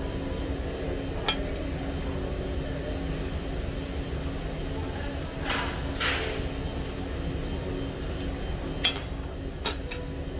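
A few sharp clicks and clinks over a steady low hum, with two short rushing noises near the middle.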